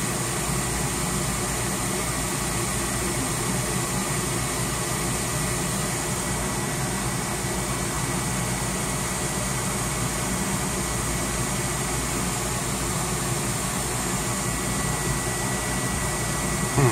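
New draft inducer motor on an ICP 90% gas furnace running steadily: a fan rush with a faint steady whine. The pressure switch is not closing, so the burners stay unlit, because the restrictor plate needed with the new inducer was left out.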